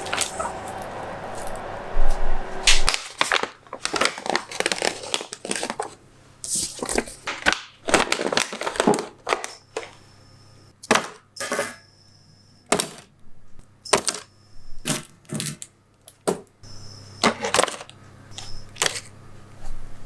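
Running water that stops about three seconds in, followed by a long series of sharp clinks and clatters of small hard objects being handled and set down.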